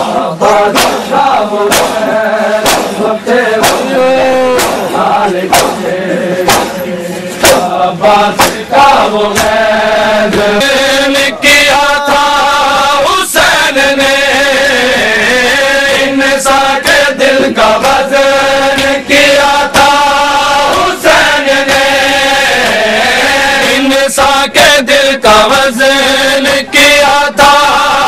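Crowd of male mourners chanting a noha in unison, with sharp rhythmic strokes of matam (hands beating on chests) keeping time at roughly one to two a second. The chanting grows fuller and steadier about ten seconds in.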